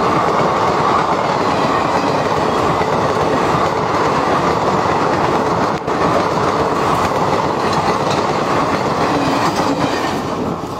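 Indian Railways passenger coaches passing at speed close by, their wheels running loudly on the rails. The noise falls away near the end as the last coach clears.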